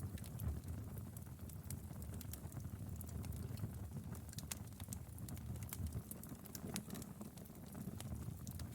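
Log fire crackling: irregular sharp pops and snaps over a low steady rumble of the flames.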